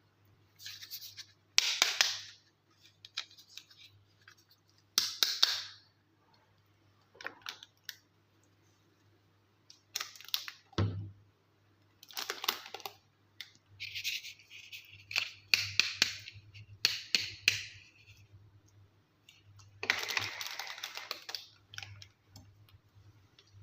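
Small plastic toys and their packaging being unboxed and handled by hand: irregular bursts of crinkling and scraping with sharp plastic clicks, separated by short pauses.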